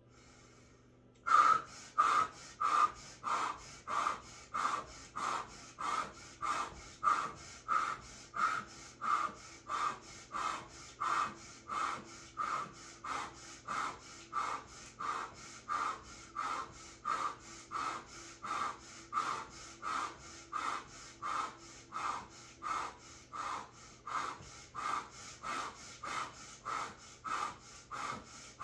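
A woman in an ice bath breathing forcefully and rhythmically through the cold, with sharp exhalations through pursed lips at about three breaths every two seconds. The breathing starts about a second in and keeps an even pace.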